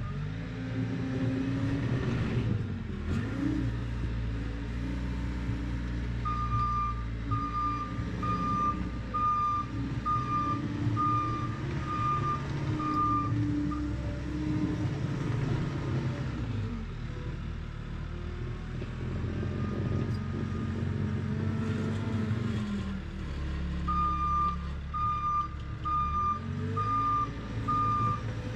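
Ride-on trencher's engine running with its revs rising and falling, while its reversing alarm beeps steadily at about three beeps every two seconds during two stretches, one in the first half and one near the end, as the machine backs up.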